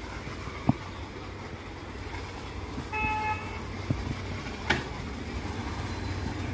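A short vehicle horn toot about three seconds in, over a steady low hum. A few sharp clicks are heard, one early, then two more a little after the toot.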